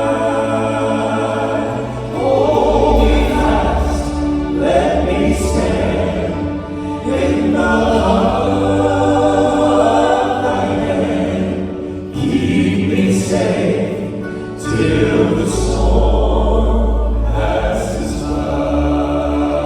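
Southern gospel vocal group singing in harmony over a musical accompaniment with a strong bass line.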